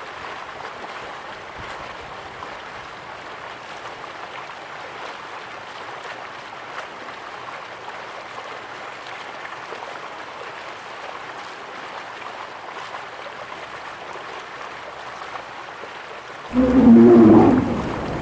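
Steady rushing, splashing water noise. About a second and a half before the end, a loud pitched animal roar or moan cuts in over it.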